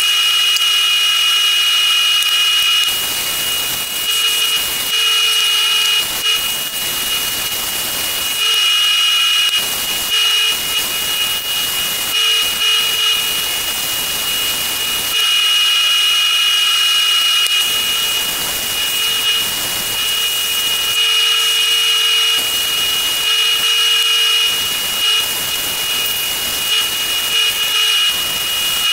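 Wood lathe running with a steady high whine, while sandpaper held against the spinning wooden piece makes a rough hiss that starts about three seconds in and comes and goes as the sandpaper is pressed on and lifted.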